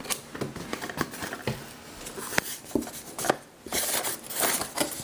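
A cardboard box being opened by hand: scattered light clicks and taps as the flaps are worked loose, then a stretch of rustling and scraping near the end.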